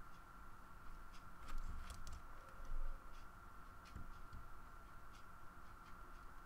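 Stylus tapping and scratching on a graphics tablet: irregular faint clicks with a couple of louder knocks about one and a half and nearly three seconds in, over a steady high electrical hum.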